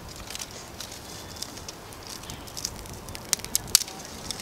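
Kindling fire of dry sticks and grass crackling as it catches, with irregular sharp pops and a few louder snaps about three to four seconds in.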